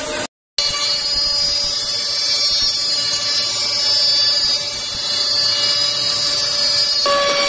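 CNC multi-spindle slot-mortising and drilling machine running, its spindles giving a steady high whine of several tones as they cut into wooden parts. The sound drops out briefly about a third of a second in.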